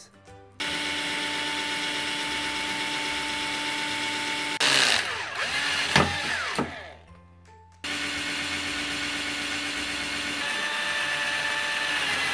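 Cordless drill boring holes in a square metal tube. A steady motor whine turns louder and harsher about five seconds in as the bit cuts through, then winds down and stops. After a short pause a second steady run follows.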